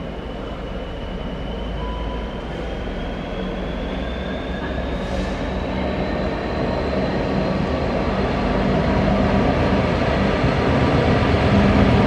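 Freightliner Class 66 diesel locomotive with its freight train approaching through the station, its two-stroke diesel rumbling and growing steadily louder as it nears. A thin high whine rises slowly in pitch over it.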